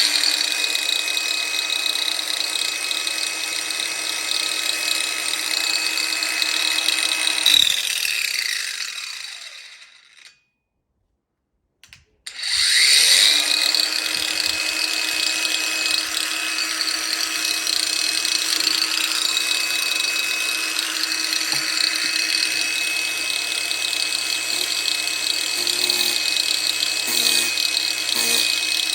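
Ozito PXC 18V brushless angle grinder running at full speed with a steady high whine. It is switched off about seven seconds in and its pitch falls as the disc spins down. Some seconds later it is started again and runs up to speed.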